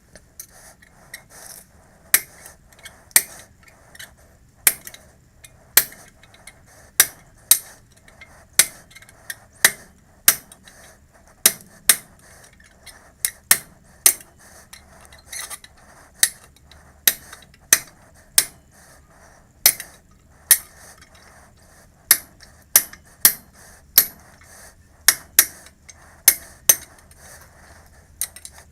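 A hammer striking metal in sharp, ringing taps, irregular, about one or two a second.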